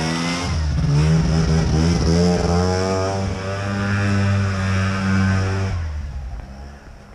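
Sachs KM914 Wankel rotary engine of a snowmobile, with dual carbs and a modified exhaust, revving up and down under throttle. About six seconds in the sound falls away to a much quieter steady hum.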